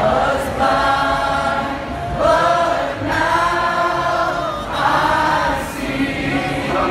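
A large crowd singing together in long held phrases, with short breaks between them.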